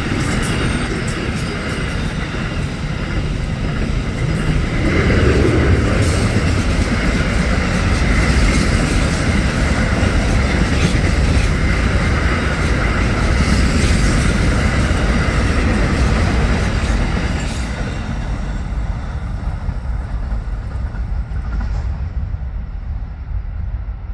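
Freight train's container and steel-coil platform wagons rolling past: a steady rumble of wheels on rail with repeated clicks over the rail joints. The noise fades over the last several seconds as the end of the train goes by.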